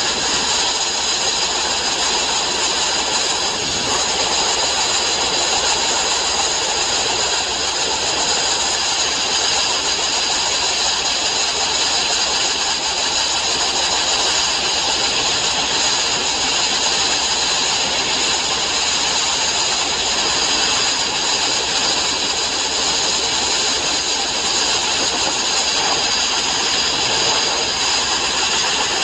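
Abrasive sandblasting of steel plate: a loud, steady hiss of compressed air and grit from the blast nozzle, running without a break.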